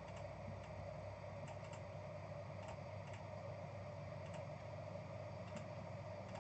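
Faint computer mouse clicks, single clicks spaced a second or so apart, over a steady low hum.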